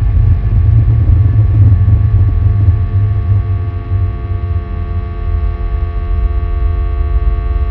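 Sci-fi UFO hover sound effect: a deep, steady rumbling drone with several thin sustained tones above it. It is loudest in the first few seconds and eases a little after.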